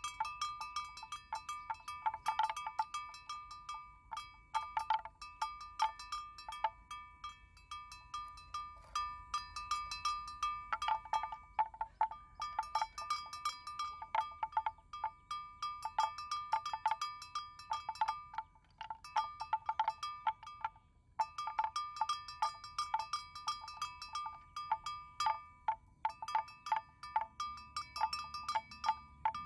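A metal bell clanking in rapid, irregular strokes, each ringing on at the same pitch, with a few brief pauses.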